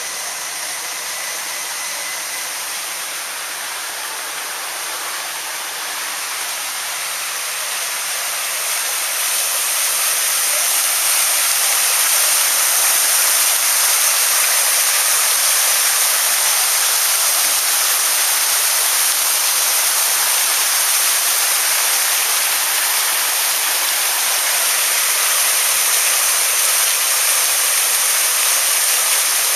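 Fountain water jets splashing down into their basin: a steady rushing hiss that grows louder over the first ten seconds or so, then holds.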